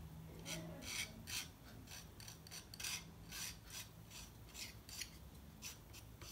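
Metal palette knife scraping and spreading thick acrylic paint across canvas cardboard: a run of short, uneven raspy strokes, two or three a second.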